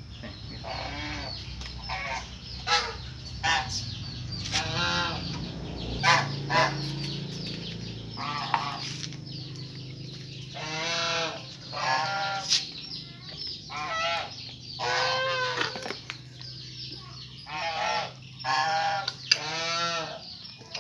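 Farm animals calling: a string of short pitched cries, most under a second long, coming every second or so and sometimes overlapping.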